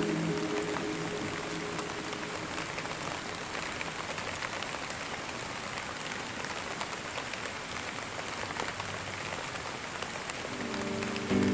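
Steady rain falling: an even hiss of rainfall with scattered light drop ticks. Soft music fades out just after the start, and the next song's sustained notes come in near the end.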